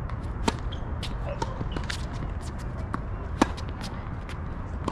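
Tennis ball impacts on an outdoor hard court: two sharp hits, about half a second and three and a half seconds in, among lighter clicks and scuffs. A steady low rumble of wind on the microphone runs underneath.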